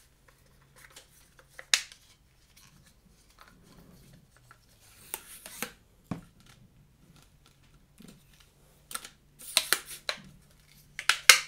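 Handling of GoPro accessories: scattered sharp clicks and snaps, with a short rustle about five seconds in and a quick cluster of clicks near the end.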